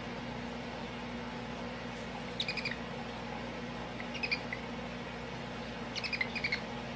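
A small animal giving rapid high-pitched chirps in three short bursts, over a steady hum.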